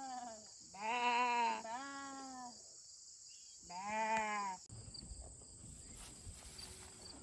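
Rams bleating: four long, pitched bleats in the first half, the loudest about a second in and about four seconds in, followed by faint rustling.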